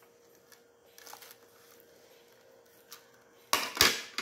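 Table sounds of eating by hand: a few faint clicks of a spoon on a plate, then a short loud clatter near the end as the grilled milkfish is pulled at on its plate. A faint steady hum lies underneath.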